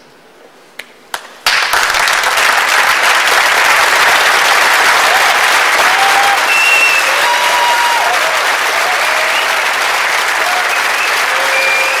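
Audience applause: a couple of lone claps, then the whole hall breaks into clapping about a second and a half in, loud and steady, with a few short cheers rising over it.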